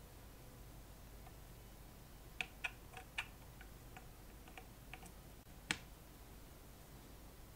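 Light clicks and taps of glass noval vacuum tubes being pushed into their sockets on a metal amp chassis: a string of small clicks in the middle, with one sharper click near the end.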